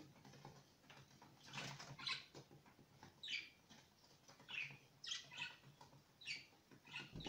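Faint small splashes and swishes of water in a plastic tub as a budgerigar is bathed by hand in copper sulphate solution. The soft bursts come every half second to a second.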